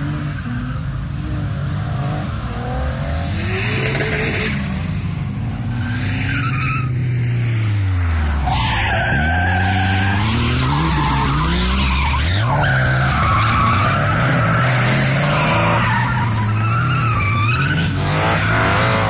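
Drift car's engine revving up and down hard as it slides, its pitch dropping low about eight seconds in and climbing again, with tyres squealing from about then on.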